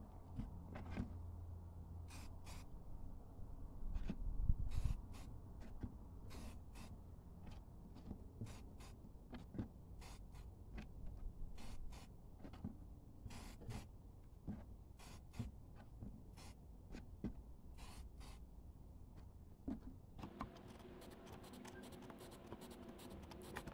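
An aerosol can of Rust-Oleum Glow in the Dark MAX spray paint sprayed in many short, quick, irregular bursts, with a longer stretch of spraying near the end. There is a low thump about four and a half seconds in.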